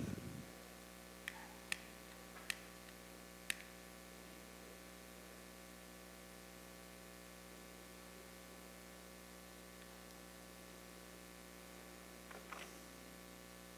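Low, steady electrical mains hum from the sound system, with a soft thump at the very start and four sharp clicks within the first few seconds.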